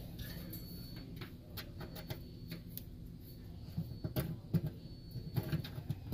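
Scattered light clicks and taps as probe wires and their plastic connector are handled and fed through a hole in the oven cavity's metal wall, growing busier about four seconds in, over a steady low hum.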